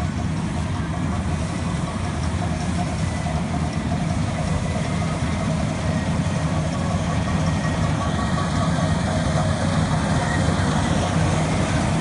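Combine harvester's diesel engine and machinery running steadily at a constant speed, a little louder in the last few seconds.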